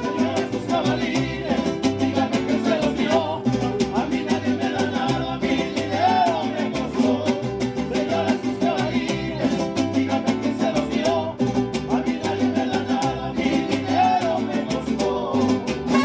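Mariachi band playing live: violins and trumpets carry the melody over strummed and plucked guitars that keep a steady rhythmic beat.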